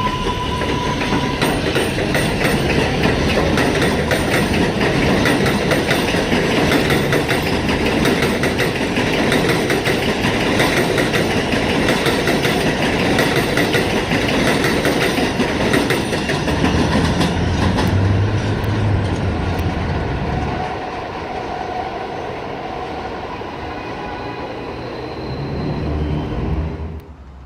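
New York City Subway R188 train running on the rails, with a dense rumble and rapid clicks of the wheels over the track. It is loud for about twenty seconds, then quieter, and cuts off sharply just before the end.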